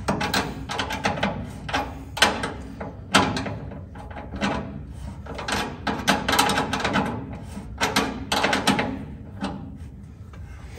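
Metal brake line being bent by hand and worked into place under a truck: a run of irregular clicks, taps and knocks of the tubing and hands against metal.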